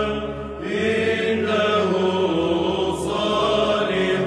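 Arabic psalm chant in Orthodox style: voices hold long melismatic notes over a steady low drone, the melody stepping to a new pitch about a second in.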